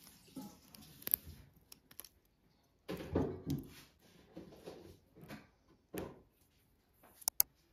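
Faint rustling of paper nail forms being handled, with scattered small clicks and taps of long builder-gel nails, including two sharp clicks near the end.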